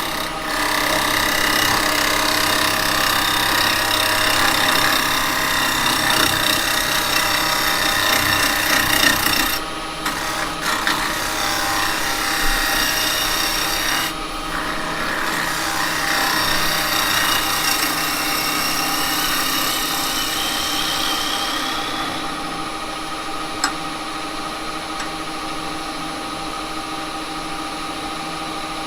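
Carbide hollowing cutter scraping the inside of a spinning cherry-wood blank on an Axminster wood lathe: a steady cutting noise over the lathe's motor hum, breaking off briefly twice as the tool comes away. About two-thirds of the way through the cutting stops and the lathe keeps running alone, with a couple of small clicks.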